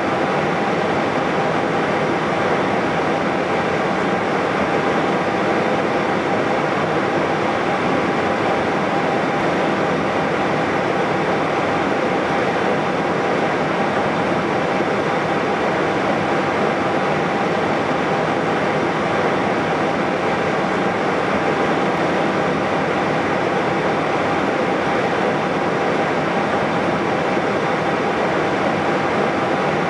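Airbus A320-214 with its CFM56 engines idling while it holds still on the runway: a steady, even rush of noise with a thin constant whine.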